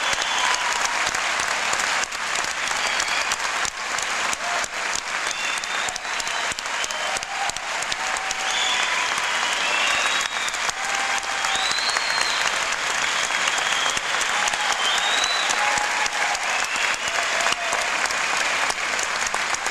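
Concert hall audience applauding steadily, many hands clapping at once, with short cheers and whoops scattered over the clapping.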